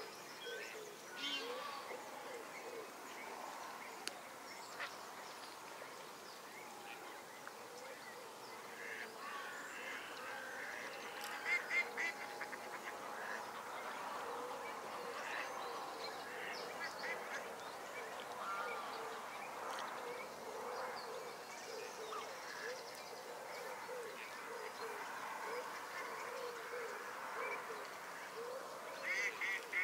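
A flock of Canada and greylag geese honking and calling over and across each other on the water, with louder, closer honks about twelve seconds in and again near the end. A steady hum of distant road traffic runs underneath.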